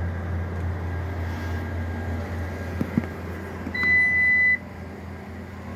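A single steady electronic beep of just under a second from the Lexus LX600's power tailgate as its close button is pressed, over a steady low hum, with a few faint clicks just before it.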